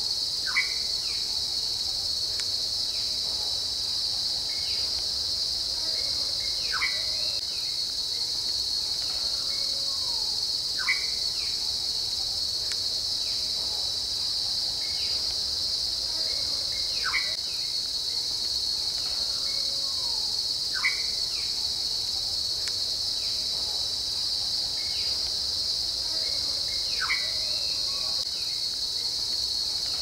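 Steady night-time insect chorus, a continuous high-pitched trill. A short falling call from another animal repeats every four to six seconds over it.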